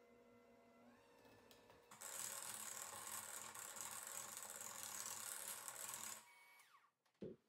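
KitchenAid electric hand mixer running with a steady whine, then its beaters churning through quick-bread batter in a bowl for about four seconds, much louder and noisier. The motor winds down near the end, followed by a short low thump.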